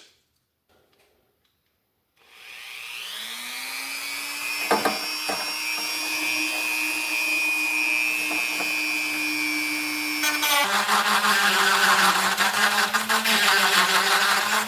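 Rotary tool spinning up to speed and running with a steady high whine. Near the end its pitch drops as it bites into the window switch's extra-long male plug, and a harsh grinding noise starts.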